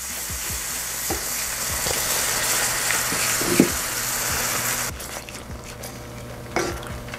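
Half-and-half sizzling as it hits a hot garlic-butter and flour roux in a stainless steel skillet, stirred with a wooden spoon that scrapes lightly on the pan, with one sharper knock about three and a half seconds in. The sizzle drops off abruptly about five seconds in.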